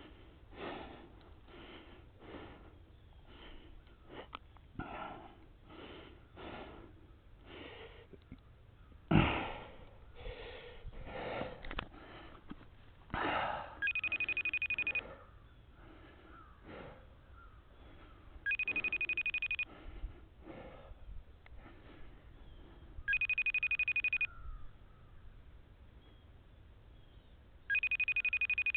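A phone ringing on an outgoing call: four even, high-pitched rings, each a little over a second long and spaced four to five seconds apart, starting about halfway through. Before the rings there are soft rustling sounds and one sharp thump about nine seconds in.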